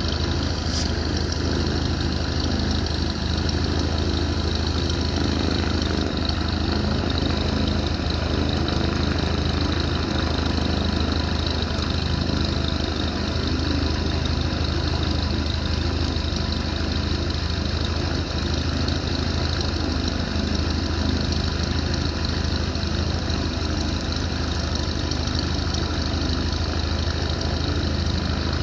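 Steady, unchanging drone of a Cessna 150's four-cylinder piston engine and propeller in flight.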